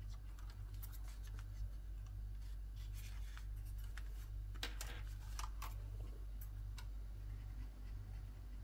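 Scattered light clicks and taps of small plastic parts and packaging being handled during an unboxing, busiest in the middle, over a steady low hum.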